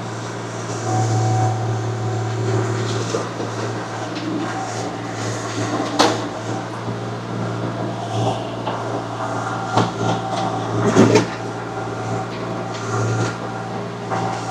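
Compact earthmoving machine's engine running steadily under load, with sharp knocks and scrapes as the bucket works through stony ground; the hardest knocks come about six seconds in and again around eleven seconds.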